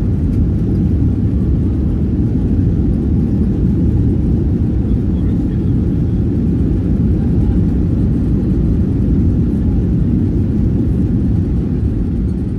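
Steady low rumble of a Boeing 737-800 jet airliner during its landing, even in level with no sudden changes.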